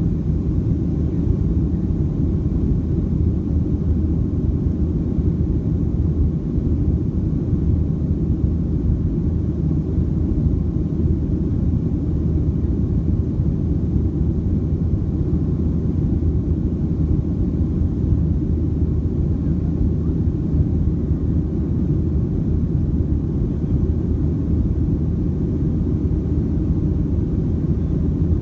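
Steady low rumble of a Boeing 737-700's CFM56-7B jet engines and the airflow over the airframe, heard inside the passenger cabin in flight.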